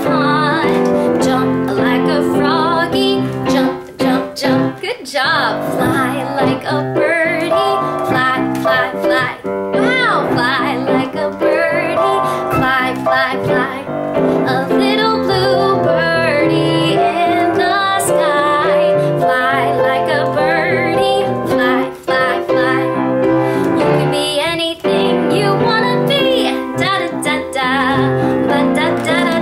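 A woman singing a simple children's song in a bright, high voice over a steady instrumental backing, with piano or keyboard audible.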